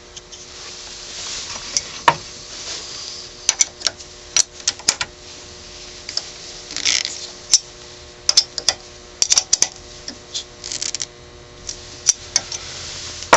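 Irregular clicks and light metallic taps, with a few short scrapes, as a small square hard maple blank is handled and seated between a wood lathe's chuck jaws and tail center, the lathe not running.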